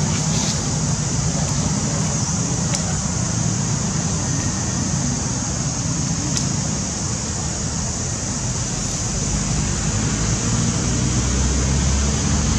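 Steady outdoor background noise: a continuous low rumble with a steady high-pitched hiss over it and a couple of faint ticks.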